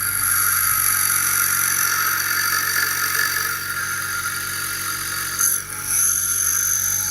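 Ryobi bench grinder's wheel grinding metal: a steady, loud grinding with high steady tones over the motor's hum. The grinding breaks off briefly about five and a half seconds in, then carries on.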